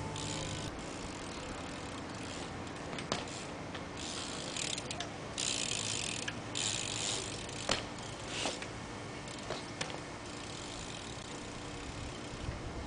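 BMX bike coasting on asphalt, its rear hub ratchet buzzing, loudest midway as it rolls close by, with a few sharp clicks.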